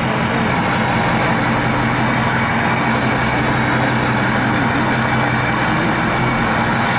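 A 2006 Ford F-550's 6.0 Powerstroke V8 turbo diesel, straight-piped with the muffler and catalytic converter deleted, running at a steady low engine speed, heard from inside the cab.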